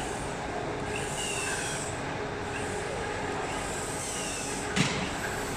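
Factory machinery running steadily, most likely the CNC four-side edge cutting machine at work, with an even hum and a single sharp knock near the end.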